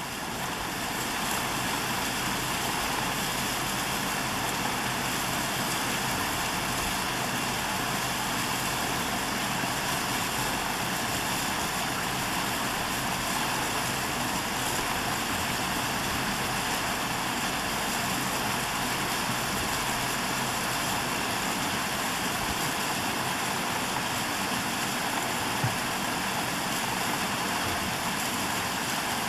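Shuttle bus engine idling steadily, heard from inside the bus, with one brief click near the end.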